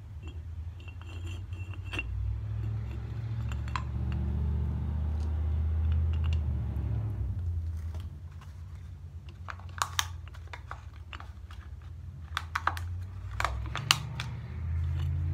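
Small steel pieces clinking and knocking as they are dropped and pushed into a steel pipe container for pack carburizing, with the loudest clicks about ten seconds in and again near the end. A steady low hum runs underneath.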